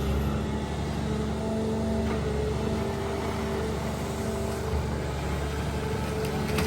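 Long-reach excavator's diesel engine running steadily with a low rumble and a steady hum while it digs.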